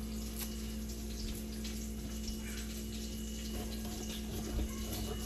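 Salmon fillets sizzling steadily in a frying pan, over a steady low hum. A few faint knife taps on a plastic cutting board come in the second half.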